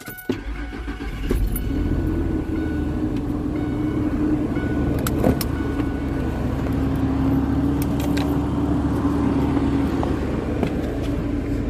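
Vehicle engine cold-started after sitting out in a snowstorm: it catches almost at once and settles into a steady idle.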